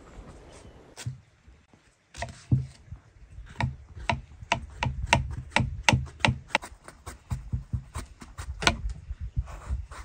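Knife chopping on a wooden cutting board: a run of quick, sharp strikes, about three a second, starting about two seconds in and stopping near the end.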